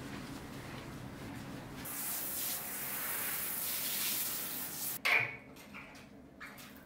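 Water spraying from a shower hose into a bathtub, hissing louder from about two seconds in and stopping about five seconds in with a sharp click. A few softer knocks follow as the chrome pop-up drain plug is pressed shut.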